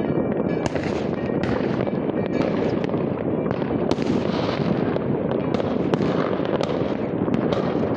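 Many fireworks and firecrackers going off at once across a city: a continuous din of irregular bangs and crackles with no gaps.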